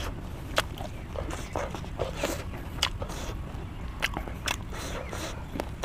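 Close-miked chewing of crispy fried chicken: irregular sharp crunches and mouth clicks, over a steady low rumble.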